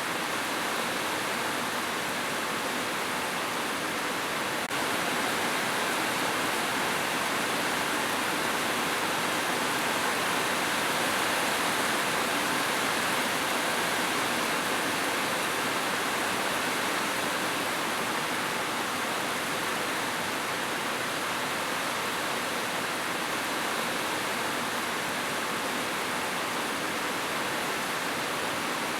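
Steady, unbroken rushing of water, an even hiss with no pauses or rhythm.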